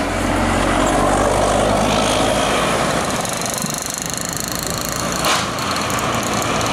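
Large tour bus driving past close by, its diesel engine running steadily, then road traffic noise as vehicles pass, with one short sharp sound near the end.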